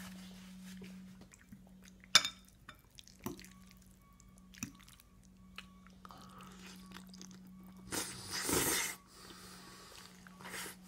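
Toddler eating pasta by hand: soft wet chewing and mouth sounds, with small taps and a sharp click about two seconds in. There is a noisy rustle about eight seconds in, over a steady low hum.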